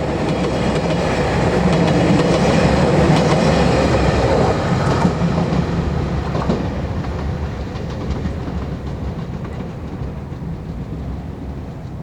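JR Shikoku 2600 series diesel railcar passing at speed, its wheels clicking over the rail joints under a steady rumble. It is loudest about three seconds in, then slowly fades as it moves away.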